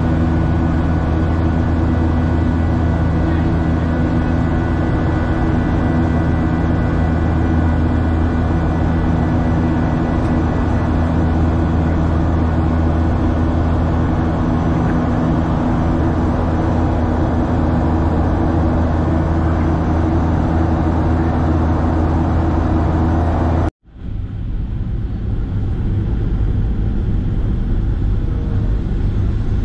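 Boeing 737-800 cabin noise: steady CFM56 jet engine and airflow noise with several low droning tones during the climb. About three-quarters of the way through it cuts off abruptly, and a softer, lower rumble follows, the cabin on approach.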